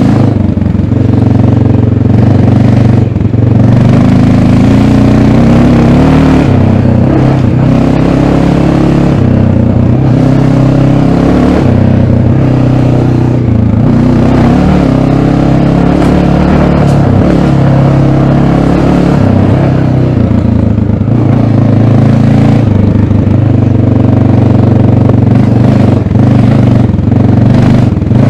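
1988 Honda NX650 Dominator's air-cooled single-cylinder engine through its stock exhaust, under way with the revs rising and falling again and again as the throttle is worked.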